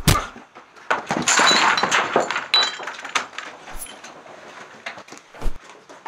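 Fist fight: a hard hit at the start, then a long crash about a second in with breaking and clinking, followed by scattered knocks and a dull thud.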